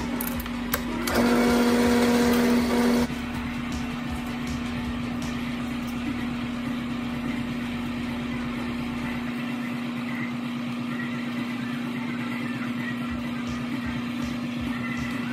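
Drill press boring through a UHMW plastic sheet, the cut louder for about two seconds shortly after the start. It is set against a steady hum that runs throughout, with a few faint knocks near the end.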